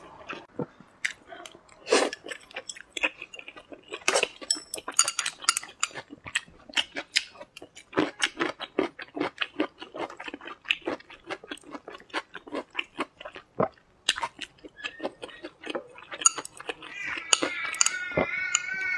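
Close-up eating sounds: wet chewing and smacking on boiled dumplings, with chopsticks clicking against a glass dipping bowl in many short sharp clicks. Near the end a high wavering cry comes in.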